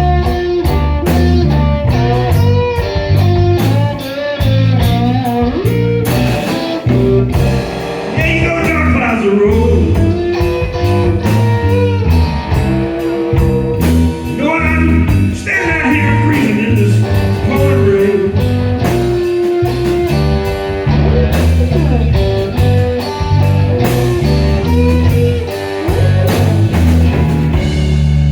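Live slow-blues band: a Fender Stratocaster electric guitar playing lead lines with held notes and string bends, over electric bass and a drum kit.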